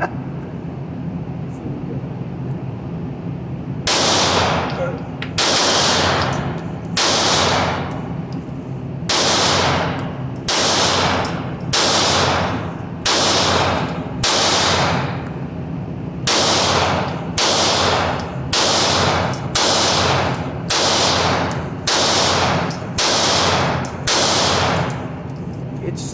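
Pistol shots fired at a steady pace, about twenty rounds roughly a second apart. They start about four seconds in, each shot ringing briefly in the range, over a steady low hum.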